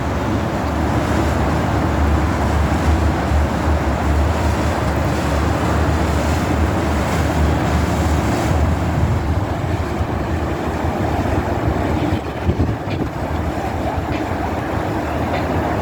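Steady low drone of a motorboat running on the river, with water and wind noise over it; the low hum eases off about nine seconds in.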